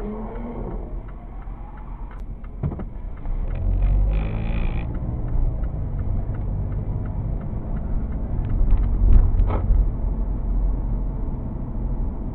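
Car cabin sound picked up by a dash camera while driving: steady low engine and road rumble that grows louder a few seconds in, with scattered light clicks and knocks.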